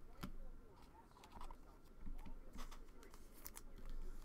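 Trading cards being handled in the hands: a few soft clicks and rustles as the cards are shuffled and tapped together.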